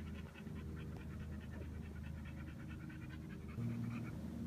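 A dog panting in quick, even breaths that fade out near the end, with a low steady hum coming in over the last second.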